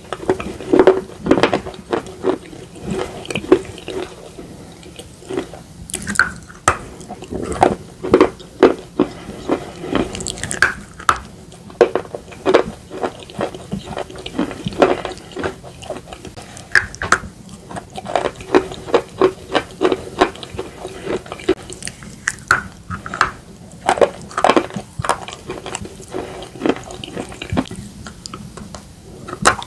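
Close-miked crunching and chewing of slate pencils and slate bar, some of it in a wet slate paste: repeated sharp, irregular crunches in quick runs.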